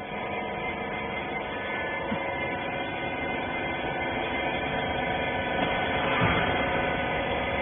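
Wiper-rag bagging baler machine running with a steady, many-toned hum that swells a little about six seconds in.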